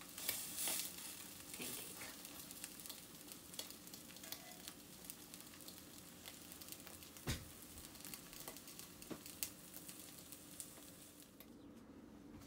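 Oatmeal pancakes frying in oil in a cast-iron skillet, sizzling steadily with scattered small pops and crackles. The sizzle is louder just at the start and drops away shortly before the end.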